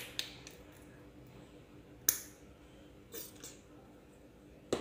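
Mustard squeezed from a plastic squeeze bottle into a bowl, mostly quiet handling with a sharp click about two seconds in and a few softer clicks and knocks after it.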